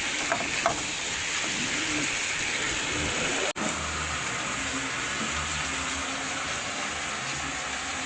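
Chicken frying in a caldero with caramelized sugar, a steady sizzling hiss as it browns. A couple of light clicks come about half a second in, and the sound drops out for an instant about three and a half seconds in.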